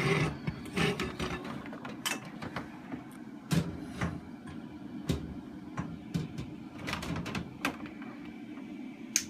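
Scattered clicks, knocks and rubbing from hands and objects being moved about in a glass reptile tank, over a steady low hum.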